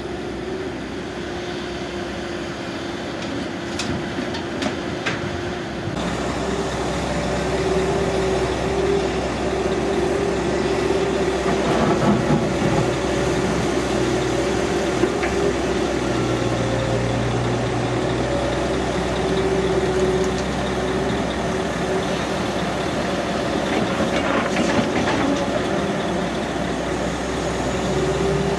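Caterpillar 312D L excavator's diesel engine running steadily with a constant hum as the machine digs and swings loads of dirt. There are louder rushes of noise from the bucket and dirt about twelve seconds in and again near the end.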